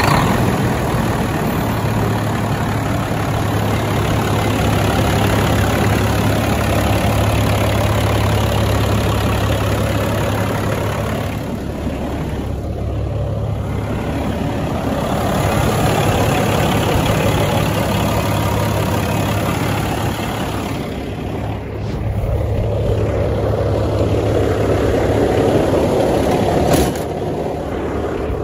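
Caterpillar diesel engine of a 2007 Peterbilt 386 semi tractor idling steadily with an even low hum. A single brief knock near the end.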